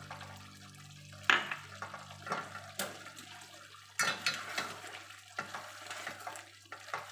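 Silicone spatula stirring a thick, wet chicken curry in a stainless steel pot. Several sharp knocks of the spatula against the pot come through the wet stirring.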